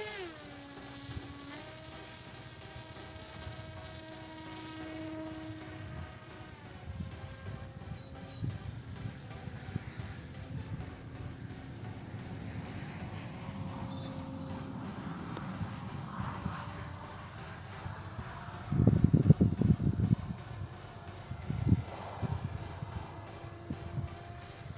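Steady chirping of insects, with the faint hum of the Geobat RC plane's 2200kv brushless electric motor drifting up and down in pitch. A couple of low rumbling bumps come about 19 and 22 seconds in.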